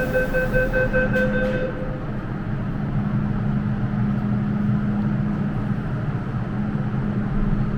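Door-closing warning beeps of an MTR M-Train, a rapid repeating tone, stop about two seconds in; then the electric train's steady running rumble with a low hum as it pulls away from the platform.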